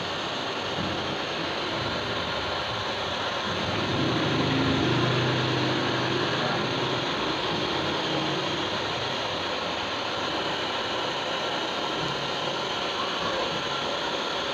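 Handheld hair dryer blowing steadily, used as a blower to heat a vinyl sticker so its adhesive softens. It grows louder, with a low hum, for a few seconds near the middle.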